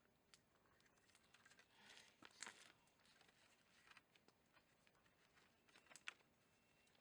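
Near silence, with a few faint scattered rustles and clicks.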